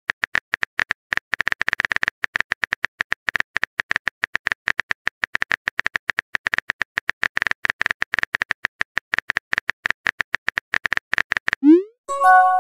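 A rapid, uneven stream of short high-pitched clicks, then a quick rising blip and a short chime of a few tones near the end.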